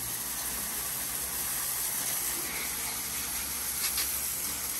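Water spraying steadily from a hose nozzle onto a concrete fountain, rinsing off sanding dust: an even hiss of spray that switches on just before and holds at a constant level.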